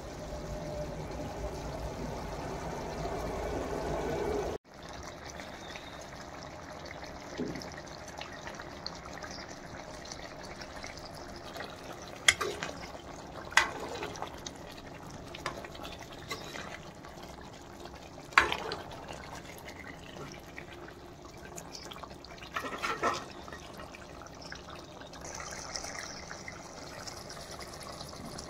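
Chicken curry boiling in a steel kadai, a steady bubbling and hissing. The sound drops abruptly about four and a half seconds in and goes on quieter, with a few sharp clicks standing out over it.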